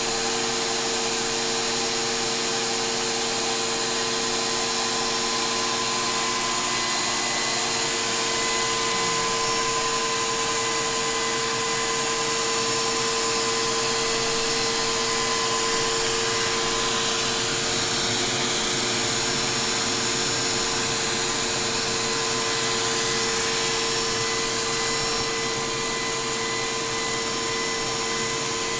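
Steady whir of the small electric motor and plastic gearing turning a Lego model steam engine's crank, flywheel and valve gear, with a constant high hum over a hiss.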